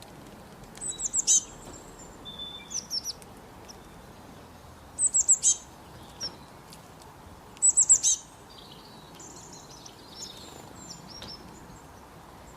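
Small birds calling: three short bursts of about four quick, high, downward-sliding notes, with softer chirps in between.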